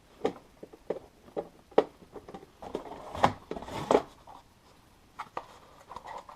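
Cardboard box and packing pieces being handled and rummaged through: a scattered series of light knocks and rustles, quieter for a moment near the end.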